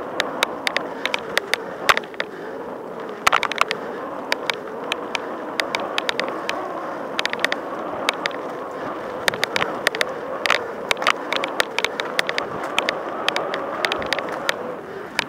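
Mountain bike rolling fast over a dirt forest trail: a steady rumble of knobbly tyres on the ground, with many sharp, irregular clicks and rattles as the bike jolts over bumps.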